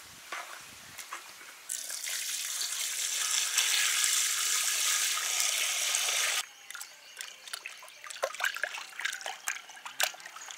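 Water poured into a metal pot of cut murrel fish, rinsing off their turmeric coating: a steady pour of about five seconds that cuts off abruptly. Then a hand swishes and rubs the fish in the water, giving irregular small splashes.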